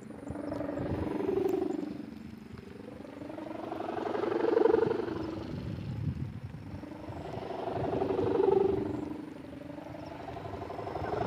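Hummer on a giant pegon kite droning in the wind, its pitched hum swelling and fading in waves about every four seconds as the kite swings. Wind rumbles on the microphone underneath.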